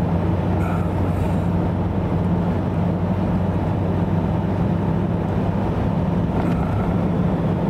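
Car cabin drone while driving on a snow-covered highway: the engine and tyres make a steady low hum under even road noise, with no change in speed or pitch.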